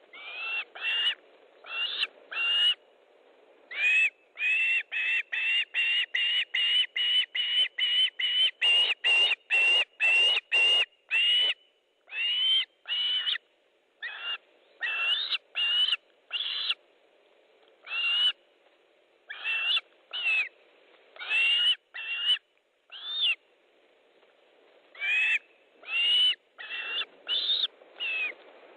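Osprey calling: a long series of short, high whistled calls, each bending up and then down in pitch. They come about two a second in a quick run through the middle and more spaced out towards the end.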